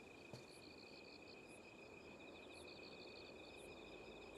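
Faint crickets chirping: a steady high trill with rapid pulsing, and a short higher chirp about once a second.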